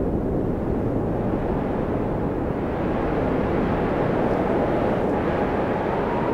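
Steady low outdoor rumble, filling out a little in the middle, with a faint high whine coming in near the end.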